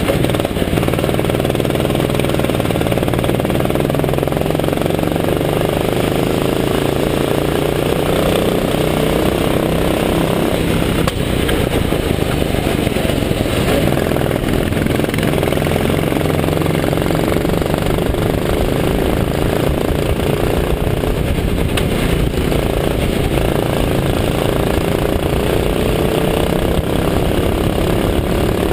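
Rental go-kart's small engine running at speed, heard from on board, its pitch rising and falling slowly as the kart accelerates and slows. A steady rushing noise runs under it throughout.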